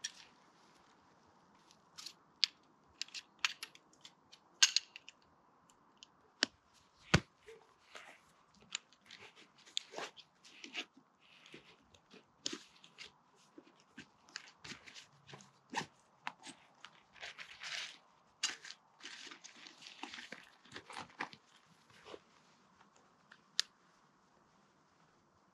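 Camp gear being packed away by hand: rustling of tent fabric and pack material with many short, sharp clicks and knocks, the loudest in the first several seconds.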